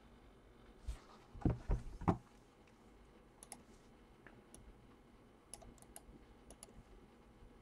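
A few soft thumps a second or two in, then scattered faint clicks of a computer mouse being worked.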